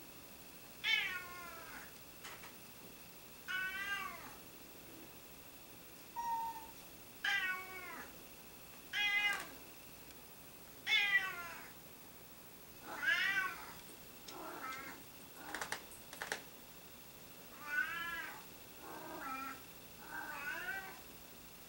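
Short-haired tabby cats meowing again and again, about ten meows spaced a second or two apart, each sliding down in pitch. A few sharp clicks come about two-thirds of the way through.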